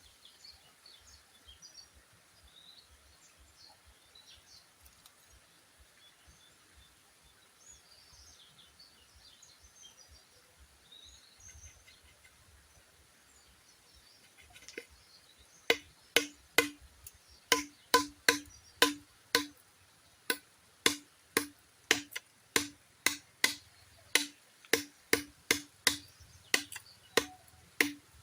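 Faint birds chirping, then about halfway through a steady run of sharp, hollow knocks on bamboo, about two to three a second, each with a short ringing pitch.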